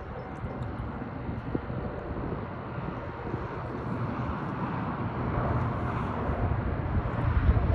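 Wind buffeting the microphone over open water: a steady rushing noise with low, fluttering rumble, swelling slightly louder over the second half.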